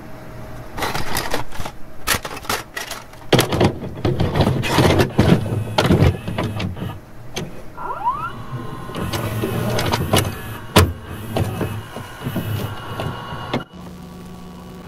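VHS tape static and glitch noise: irregular bursts of crackling hiss and buzz with sharp clicks over a low hum. A brief rising whistle comes about eight seconds in, and near the end it drops to a steady low hum.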